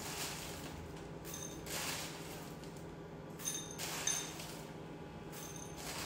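Lumps of rock sugar clinking into a dish: about five short, separate clinks with a faint ring, spread over several seconds, over a steady low hum.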